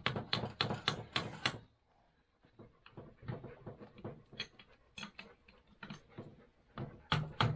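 A hammer rapping a box-end wrench to tighten the cylinder base nuts on a Polaris triple two-stroke snowmobile engine: a quick run of sharp taps, about six a second, that stops after a second and a half. Lighter clicks and taps of tools and parts being handled follow, with a few louder knocks near the end.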